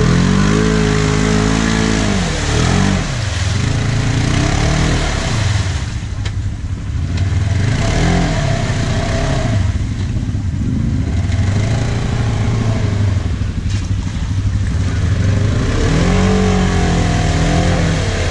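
Polaris side-by-side UTV engine revving in repeated bursts, the pitch climbing and dropping several times as the machine churns through a deep, water-filled mud hole, with water and mud sloshing.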